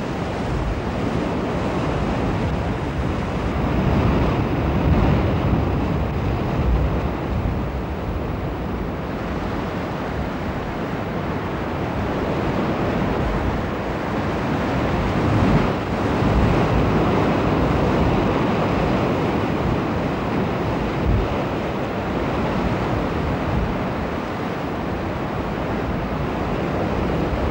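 Heavy surf surging and breaking against rock in a narrow sea channel, a continuous churning rush with wind buffeting the microphone. The loudest surges come about 5 seconds and 16 seconds in.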